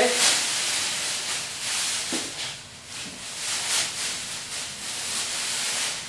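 Thin clear plastic wrapping being pulled off a microwave and bunched up by hand, a crinkling rustle that comes in uneven bouts.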